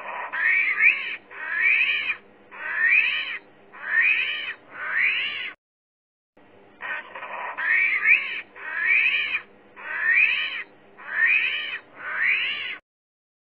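Armadillo squealing: a series of short, high cries about one a second, each rising and falling in pitch, in two runs of about six with a brief pause between them.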